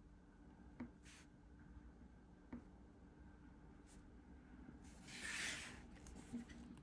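Faint sounds of a marker drawing on paper, with a few light ticks, then about a second of soft hiss as a paper sheet slides across the desk near the end.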